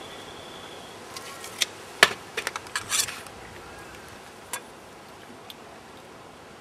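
Hand tools being handled: a tape measure put away and a steel square picked up, giving a quick run of sharp clicks and metallic clatter about two seconds in and one more click a little later, over a steady background hiss.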